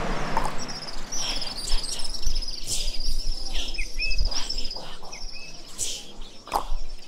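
Rural roadside ambience: a steady, high, pulsing insect trill, with short rising bird chirps twice and a low rumble underneath.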